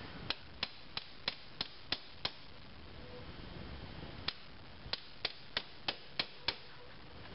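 Light, sharp hammer taps, about three a second, in two runs of six or seven with a single tap between, driving a lower control arm's rubber isolator into its seat so that the arm can be bolted back up.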